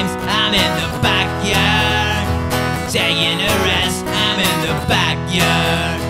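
Acoustic punk song: strummed acoustic guitar with a melody line that bends in pitch over it.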